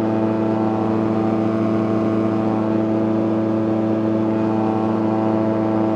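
CGS Hawk ultralight's engine and propeller running steadily in level cruise flight, heard from inside the cockpit: one even, unchanging engine note.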